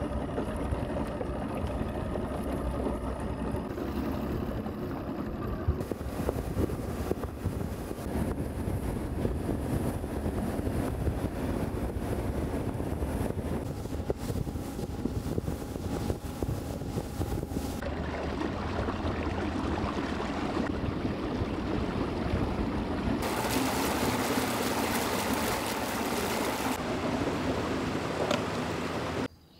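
Bass boat running at speed: the outboard motor's steady engine noise mixed with wind and water rushing past the hull. The sound shifts abruptly several times where stretches are cut together, then stops suddenly just before the end.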